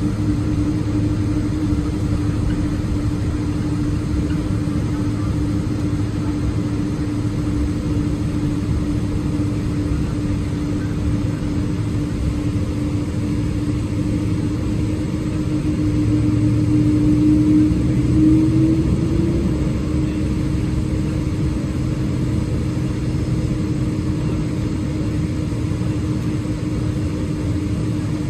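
Boeing 777-200ER jet engines droning steadily at low thrust, heard inside the cabin from a seat by the wing, with a steady hum over the rush of air. About two-thirds of the way through the drone swells briefly and rises a little in pitch, then settles back.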